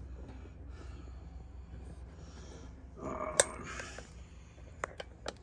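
Quiet handling noise of a plastic model car body on its wire painting stand being moved across a cutting mat: a short burst of noise with a sharp click about three seconds in, then a few small clicks near the end, over a faint low hum.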